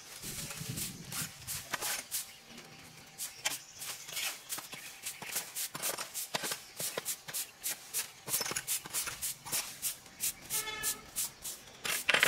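Dry leaves and brush rustling and crackling in quick irregular clicks as they are handled, with a short pitched call a little after ten seconds in.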